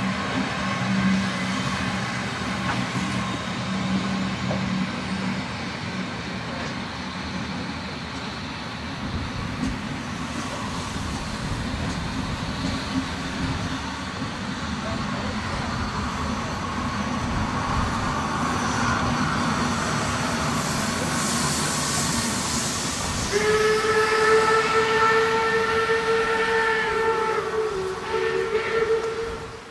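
A steam-hauled passenger train rolling past, its coaches and then a steam locomotive going by with a hiss of steam. About 23 seconds in a steam locomotive whistle gives one long steady blast of about six seconds, dipping slightly in pitch near its end.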